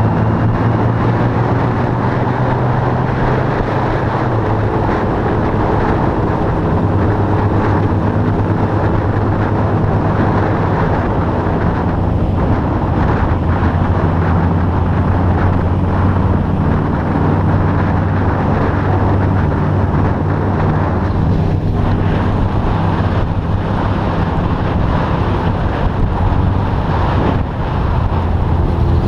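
Motorcycle engine running steadily at cruising speed on the move, its pitch drifting a little up and down, with wind rushing over the microphone.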